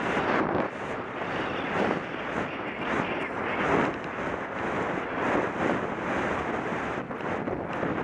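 Wind rushing over a helmet-mounted camera carried by a galloping horse, with a rhythmic swell about every three-quarters of a second in time with the horse's stride.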